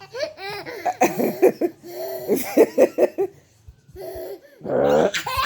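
A baby boy laughing hard in repeated choppy belly laughs, pausing briefly before another burst near the end.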